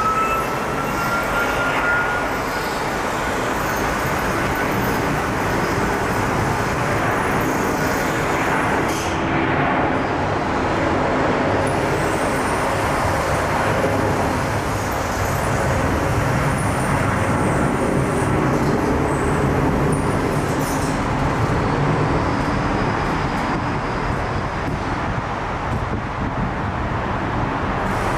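Jet engines of a Boeing 757 freighter at takeoff power during its takeoff roll: a loud, steady roar. A faint rising whine runs through the first few seconds.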